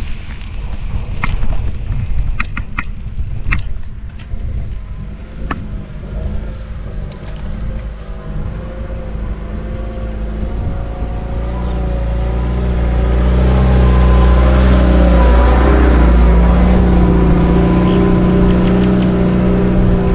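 Low rumble of wind and riding noise, with a few sharp clicks in the first seconds. Then a motor vehicle's engine draws nearer and grows louder, running loud and close through the last several seconds.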